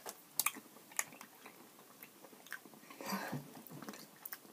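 Quiet chewing of jelly beans: a few soft, scattered mouth clicks and smacks, with a short breathy noise about three seconds in.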